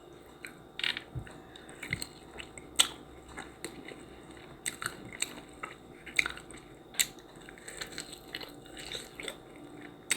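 A person chewing and biting crunchy food close to the microphone: irregular crunches and mouth clicks, several a second, the loudest about three seconds in and again about seven seconds in.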